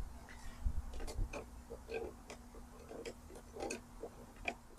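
Small parts clicking and tapping irregularly as a pressure washer's switch and plunger assembly is handled and fitted back together by hand, over a faint steady hum.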